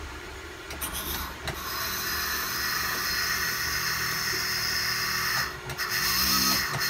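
Small electric drill running at speed, spinning Nichrome wire to wrap a clapton wire for a vape coil. The whine runs steadily, cuts out briefly about five and a half seconds in, then starts again.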